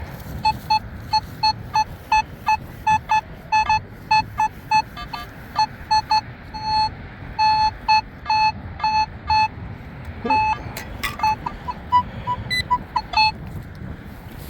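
Nokta metal detector beeping on a buried target: a long run of short beeps at one steady pitch, irregularly spaced, some held a little longer, stopping shortly before the end. A low rumble of wind runs underneath.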